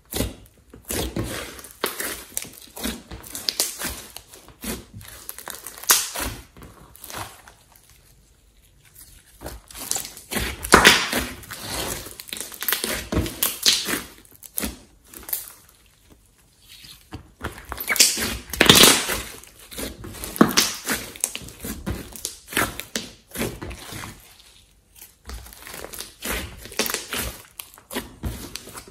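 A large batch of glossy slime mixed with clay, kneaded, squeezed and stretched by hand: irregular sticky crackling and clicking in clusters, with quieter gaps about eight and sixteen seconds in.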